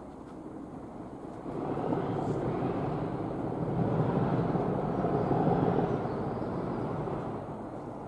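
A passing vehicle's noisy rumble, with no clear engine note, that swells about a second and a half in, peaks around the middle and fades near the end.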